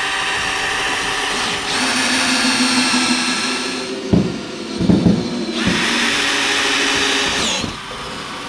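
DeWalt cordless drill whining as it bores pilot holes into a wooden 2x6, rising in pitch about two seconds in. Around the middle the whine drops out for a couple of seconds of low knocks, then it runs steady again and winds down near the end.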